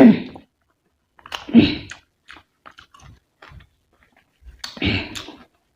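Close-miked chewing and biting of a rice and curry meal: wet mouth sounds with small clicks, and three louder bursts, at the start, about a second and a half in, and near the end.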